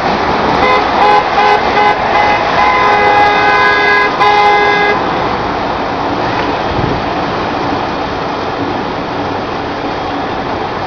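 A car horn honks several times, short toots and then a longer blast, stopping about five seconds in. Steady street traffic noise runs underneath.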